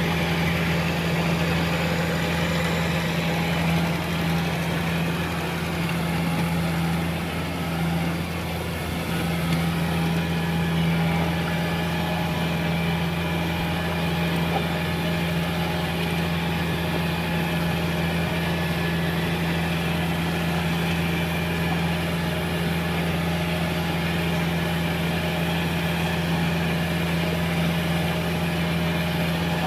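Kubota crawler combine harvester's diesel engine running steadily at an unchanging pitch while the machine sits in deep mud.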